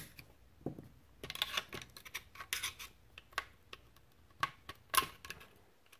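Faint, scattered metallic clicks and scrapes of a steel pick prying at the wire shepherd's-crook retaining spring and trigger pins inside an AK receiver.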